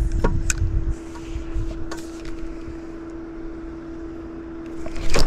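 Steady hum of a small electric motor, with rumbling and a few sharp knocks in the first second and a loud, sudden burst of noise just before the end.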